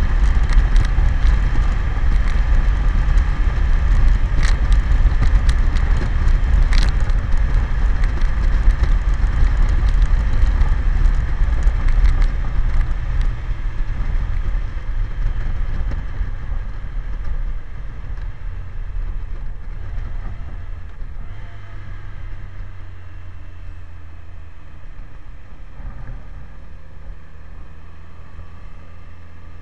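A BMW K1100LT's inline-four engine running under wind rush and road noise while riding at speed. About halfway through, the noise fades as the motorcycle slows into a bend, and the engine's steady hum comes through more clearly near the end.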